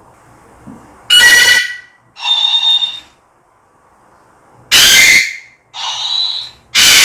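Parrot giving loud, harsh squawks: two shrill calls a second apart, a pause of about two seconds, two more, then another loud squawk near the end.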